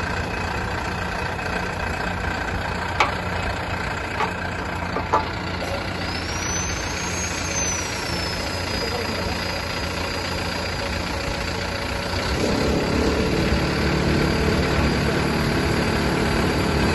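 Solar post pile driver's engine running steadily, with three sharp knocks in the first few seconds; about twelve seconds in the engine speeds up and gets louder.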